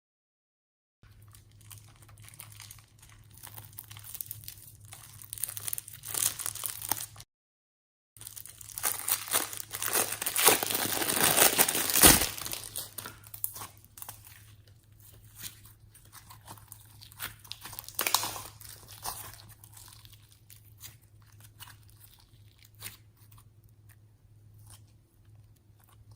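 Slime being worked by hand with makeup mixed in, making crinkling, crackling squishes that swell to their loudest about ten to twelve seconds in. The sound cuts to dead silence twice, at the very start and about seven seconds in.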